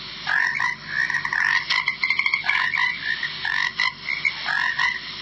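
Frog croaking, call after call in quick succession.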